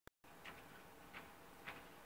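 Near silence: room tone with three faint, short ticks at uneven intervals about half a second apart.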